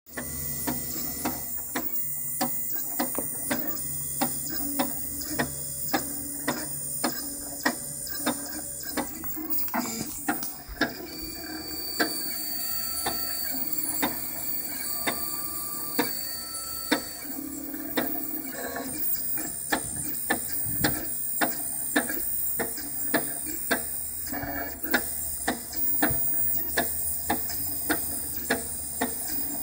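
Craftbot 3D printer running, its stepper motors humming and whining at shifting pitches, with a sharp tick about twice a second from the extruder, whose drive gear jerks like a broken clock as it feeds filament.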